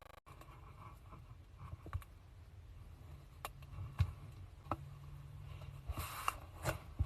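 Slime being worked by hand: scattered soft clicks and small sticky pops, a few more clustered near the end, over a low steady hum.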